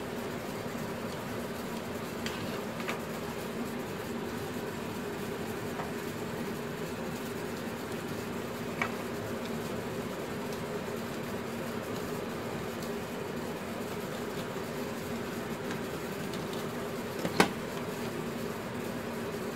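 Steady low mechanical hum throughout, with a few light clicks and knocks of a screwdriver and hard plastic toy-truck parts being handled; the sharpest knock comes near the end as the parts are fitted together.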